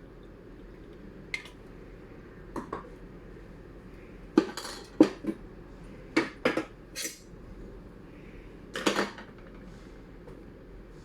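Kitchenware being handled: a spoon or other utensil clinks against dishes in about ten sharp, irregular clinks and clatters, the loudest in the middle and a clustered rattle near the end.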